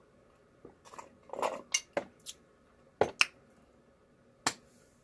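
A glass mug full of ice being handled and set down on a table. A run of rattling clinks comes in the first half, then a few sharp, separate clinks.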